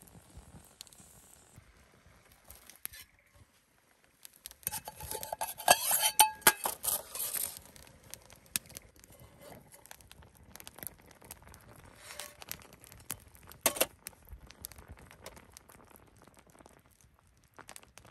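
Metal camp cookware and utensils clinking and scraping. A dense clatter with short ringing tones starts about four and a half seconds in, then scattered single clinks follow, one louder knock among them.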